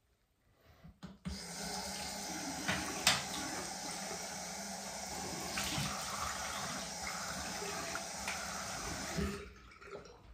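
Bathroom tap running into a sink, turned on about a second in and shut off near the end, with a few brief splashes.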